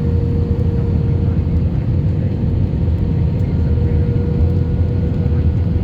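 Steady engine and airflow rumble inside a jet airliner's cabin, with a steady mid-pitched hum over it.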